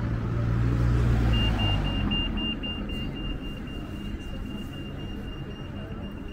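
A road vehicle passes with a low rumble that fades out about two seconds in. Then a pedestrian crossing's audible signal starts beeping, a rapid high-pitched pulsing tone that signals the green man to cross.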